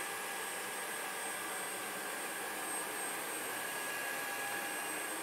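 Dreame H12 Pro cordless wet-dry floor vacuum running steadily, with a high motor whine, as it sucks up a liquid spill from a tile floor.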